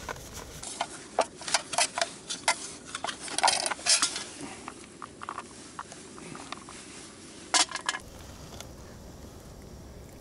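A quick, irregular run of sharp clinks and clicks of hard objects knocking together, densest around the middle and stopping a couple of seconds before the end.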